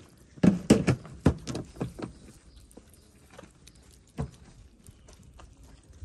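Cats chewing and smacking on wet cat food chunks in gravy, eating from a plastic dish: a run of short wet clicks and smacks, thick in the first two seconds, then sparser, with one louder smack near four seconds in.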